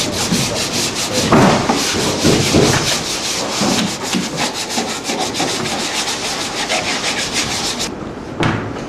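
Wooden wall boards being hand-sanded with a sanding block in quick back-and-forth strokes, a steady rasping several strokes a second. It cuts off abruptly near the end, followed by a single knock.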